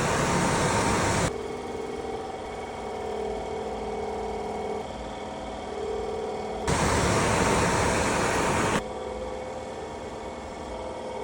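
Furnace fan motor running on a direct power test with a steady hum. A loud rush of air cuts in and out abruptly twice, once for about the first second and again for about two seconds near the middle.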